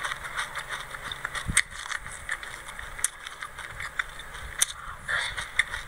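A metal spoon scraping and clinking in a glass jar of dry white sesame seeds, with a steady crackly rustle of the seeds; four sharper clinks stand out, about a second to a second and a half apart.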